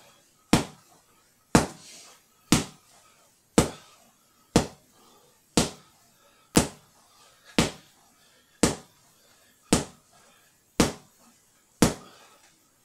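MMA gloves worn over gel inner gloves jabbing a free-standing punch bag: a steady run of sharp smacks, about one a second, twelve in all.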